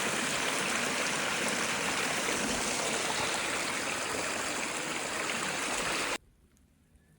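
Steady rush of running water from a stream, which cuts off suddenly about six seconds in.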